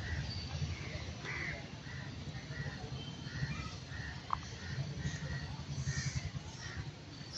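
Short harsh animal calls repeating about twice a second over a low steady rumble, with one brief squeak about four seconds in.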